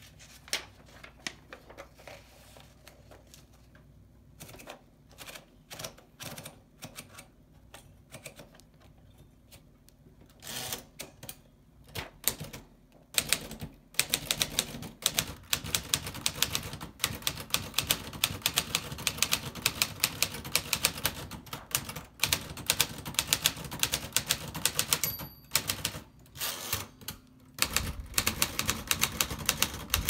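1953 Smith Corona Skyriter manual typewriter: for the first half, scattered clicks and knocks as paper is fed in, then fast, continuous typing, with the keys clacking as the typebars strike the platen. A short, high ding comes near the end.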